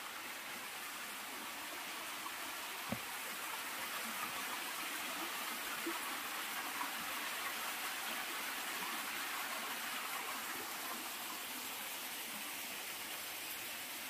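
A thin flow of water trickling down the rocks of a nearly dried-up waterfall into a shallow pool: a steady splashing hiss, with a faint tap about three seconds in.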